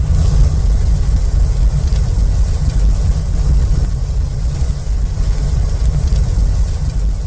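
Sound effect for a sparking, fiery portal: a loud, steady low rumble with a faint hiss over it, starting abruptly.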